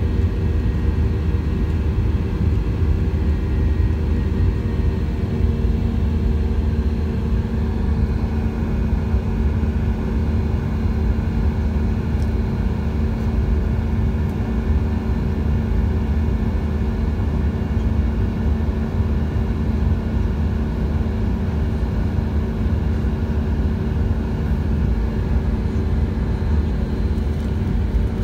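Airliner cabin noise during the climb after takeoff: a steady low rumble of jet engines and airflow heard from inside the cabin, with a few faint steady hum tones above it.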